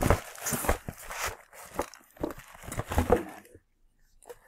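Paper and cardboard packaging crinkling and tearing as a package is opened by hand, with a few dull handling knocks; it stops about three and a half seconds in.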